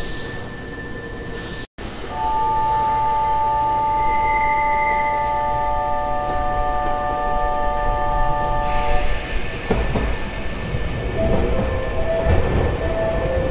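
Nankai 6000-series electric train pulling into a terminus platform. After a brief dropout, a steady chord of several tones holds for about seven seconds, then the train's hissing running noise rises as it draws close.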